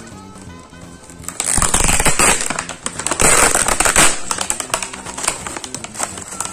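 Plastic toy packaging being torn open and crinkled: a loud burst of crackling blister plastic and bag from about a second and a half in to about four seconds, then lighter rustling and clicks as the bag is handled. Soft background music plays underneath.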